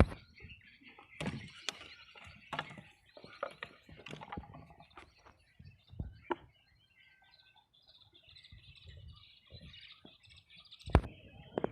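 Small birds chirping steadily, with scattered sharp knocks and handling noises, the loudest right at the start and another cluster near the end.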